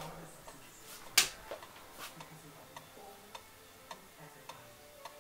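Pendulum wall clock (a vintage West German Overocean) ticking steadily, a little under two ticks a second, with one louder click about a second in. The clock only keeps running when hung tilted to one side.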